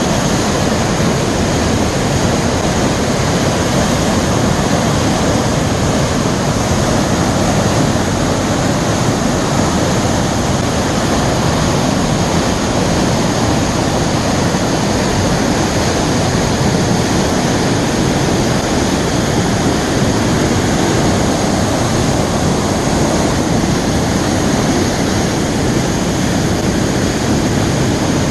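Waterfall swollen by heavy rain: a loud, steady rush of falling water.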